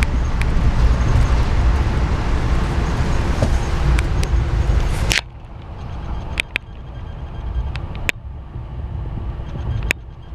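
Rumble of a moving Amtrak passenger train heard from on board: a loud, steady running noise that drops off abruptly about halfway through. Afterwards the ride is quieter, with scattered sharp clicks.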